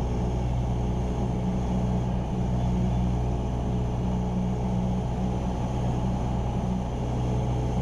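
Cessna 172R Skyhawk's four-cylinder Lycoming engine and propeller droning steadily in flight, heard inside the cockpit.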